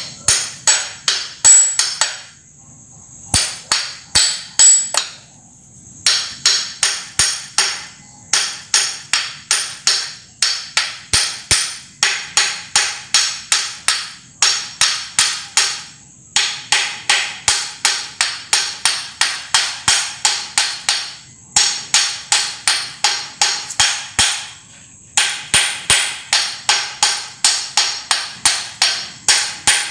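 Hammer tapping on a metal part seated on a Mitsubishi 4D33 diesel engine block during reassembly. The blows come about three a second in runs of several, with short pauses between runs, and each one rings sharply.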